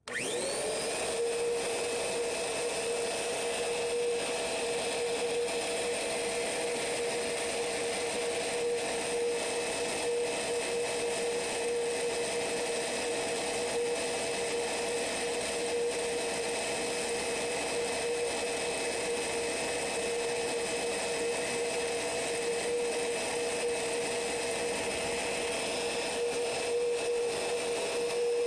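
A Kirby Sentria vacuum's brushed universal motor, running bare with its cover off. It spins up within the first second, then runs at a steady high whine while a pad is held against its spinning commutator to clean it.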